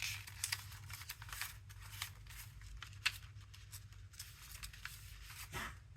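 Paper sheets being handled and shuffled through, a scatter of light rustles and small clicks over a faint steady low hum.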